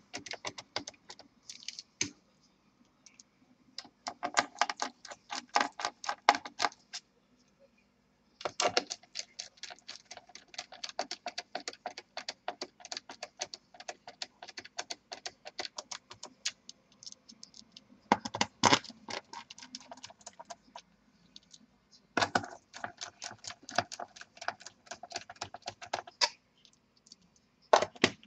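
Hand screwdriver driving screws into a laptop's plastic bottom cover: bursts of rapid clicking lasting a few seconds each, with short pauses between screws.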